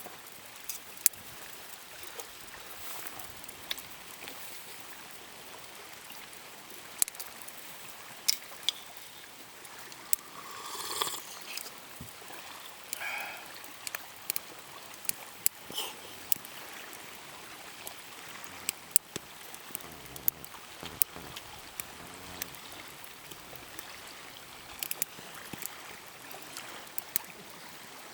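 Steady rain with irregular drops tapping close by. A louder, short rustling noise comes about ten seconds in.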